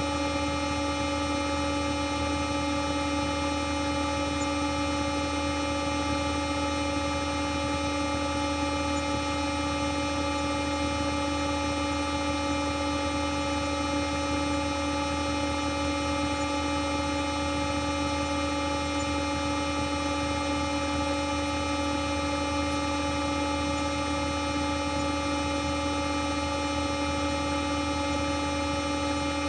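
A 'G Major' edited sound effect: a sustained, unchanging chord of horn-like tones with many overtones, made by layering pitch-shifted copies of one sound. It holds steady at one level without a break.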